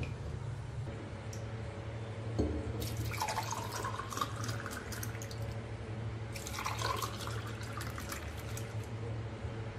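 Thick milk sharbat poured from a glass jug into two drinking glasses, one after the other: splashing with a pitch that rises as each glass fills.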